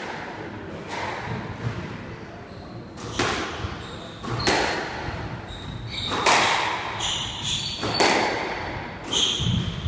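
Squash rally: the ball hitting rackets and the walls in a string of sharp, echoing hits about every one to one and a half seconds, with short high squeaks of shoes on the wooden court floor.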